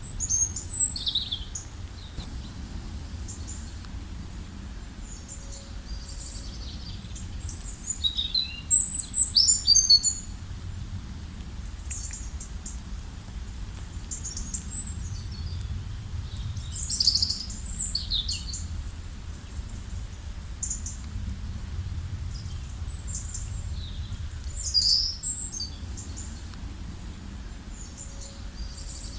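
Songbirds chirping and trilling in quick, high bursts that come in clusters, loudest around a third of the way in and again about two-thirds through, over a steady low background rumble.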